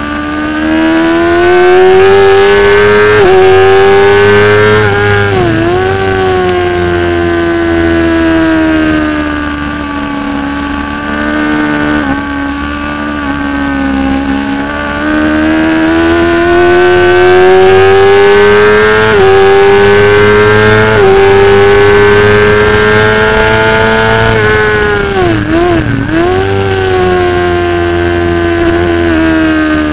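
Supersport 600 racing motorcycle engine at high revs, heard from a camera mounted on the bike, its pitch climbing steadily through the gears with quick upshifts. Twice the revs drop sharply and come back as the rider shuts off and changes down for a corner.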